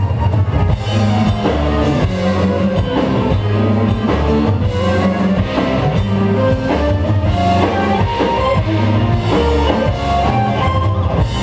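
Live progressive rock band playing: drum kit, bass guitar, electric guitar and keyboards together at a steady loud level.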